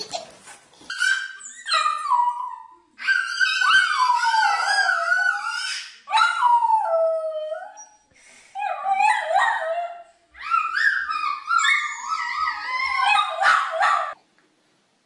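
Small dog howling: a series of long, high-pitched, wavering howls that glide up and down, about five in a row.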